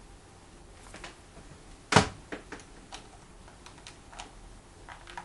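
Babyliss hair crimper being handled and clamped onto hair: a loud sharp clack about two seconds in, then a scatter of lighter irregular clicks.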